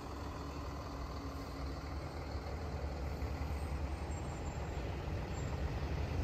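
Fire trucks driving slowly past at parade pace, a low steady engine rumble that grows gradually louder as a red pickup-based fire truck approaches.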